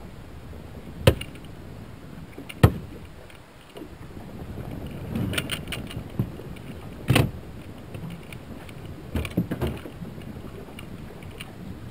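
Sharp knocks and metallic clatter on the deck of a small aluminum fishing boat: single loud knocks about a second in, near three seconds and around seven seconds, then a quick run of knocks near the end.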